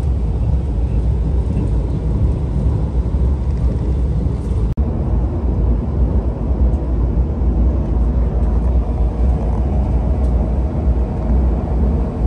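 Steady low rumble of a KTM ETS electric train running, heard inside the passenger coach. It drops out for an instant about five seconds in.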